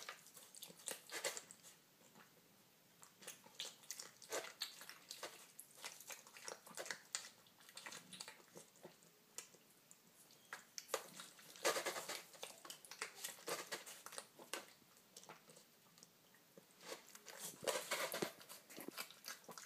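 Piglet eating from a bowl: wet, irregular smacking and chewing sounds in bouts, with short quieter pauses between them.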